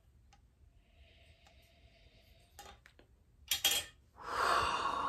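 Metal lid of a glass mason jar being unscrewed: a faint scraping of the threads, then a few sharp clicks as the lid comes free. About four seconds in, a loud long breath, a sigh.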